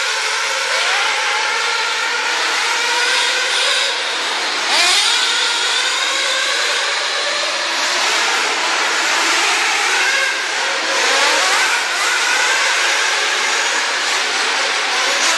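Several radio-controlled off-road race cars running at once, their motors whining and rising and falling in pitch as they rev up and back off, with sharp rising sweeps about five, eight and eleven seconds in.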